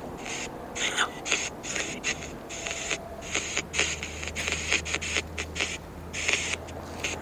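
Smartphone spirit-box app held out in the hand, playing a rapid, choppy run of short static bursts, several a second, while it scans for answers; a steady low hum joins in about halfway through.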